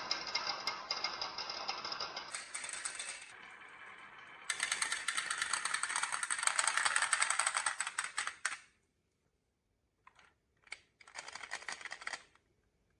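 Marbles rolling and clattering down a toy marble run, a dense rattle of rapid clicks that carries on for about nine seconds and stops abruptly. After a short pause come two single knocks and one more clatter lasting about a second.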